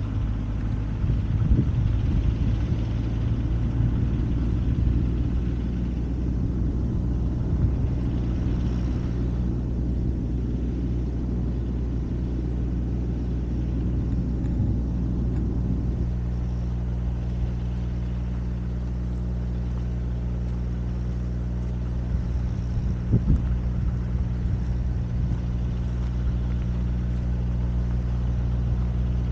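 Vehicle engine idling steadily: a low, even hum. For the first half a rougher low rumble lies over it, and it cuts off abruptly about halfway through.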